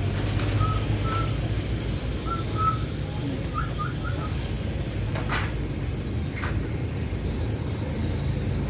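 A bird gives a scatter of short, soft chirps over a steady low hum. There are two brief scratchy sounds around the middle.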